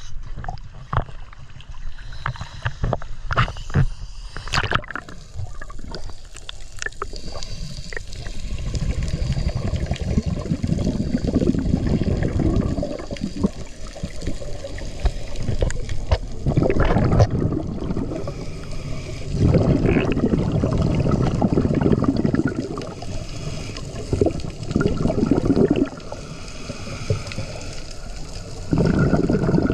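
Water splashing and slapping around a camera at the sea surface for the first few seconds. Then, underwater, a scuba regulator's exhaled bubbles gurgle in repeated bursts of one to three seconds each, over a low steady rush of water.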